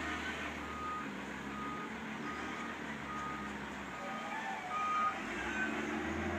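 A vehicle's reversing alarm beeping at an even pace, a little faster than one beep a second, over the low steady hum of an engine running.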